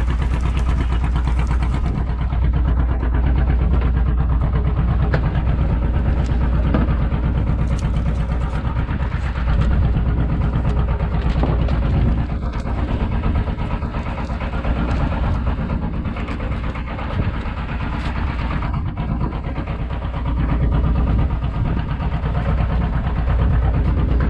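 A boat's engine running steadily at idle, a low continuous hum with an even firing beat.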